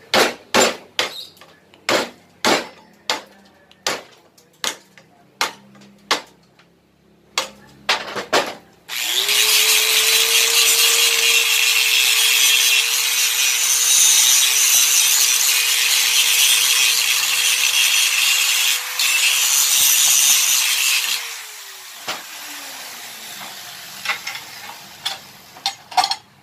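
Hammer blows, about two a second, on a chisel knocking the old lining off a steel motorcycle brake shoe held in a vise. About nine seconds in, an angle grinder with a wire wheel starts and runs steadily with a harsh scraping as it scours the bare shoe clean. It shuts off about twelve seconds later and spins down with a falling whine.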